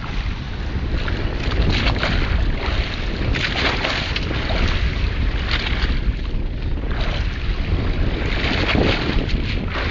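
Wind buffeting the microphone on a boat at sea, in uneven gusts over a low rumble, with the wash of water around the hull.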